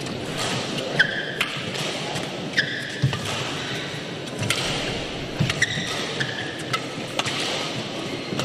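Badminton rally: sharp racket strikes on the shuttlecock about every second or two, with short squeaks of court shoes on the mat, over steady hall background noise.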